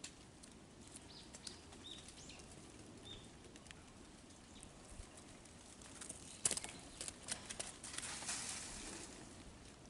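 Faint outdoor quiet with a few short high bird chirps, then crunching and rustling steps through dry leaves and crusted snow from about six seconds in, loudest about half a second later.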